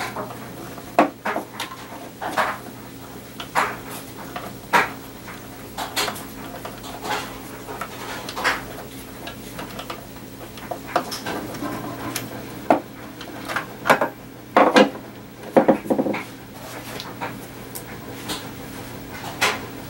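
Scattered metallic clinks and knocks of a screwdriver and hardware being handled inside a wooden stereo console cabinet, a few close together near the three-quarter mark, over a faint steady low hum.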